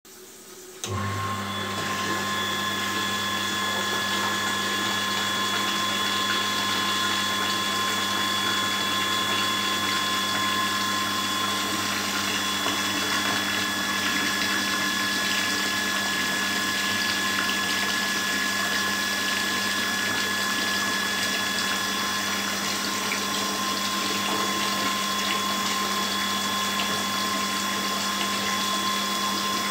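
Electric radiator-flushing pump starting about a second in and then running steadily with a hum, while black, sludge-laden flush water pours from a discharge hose into a toilet bowl.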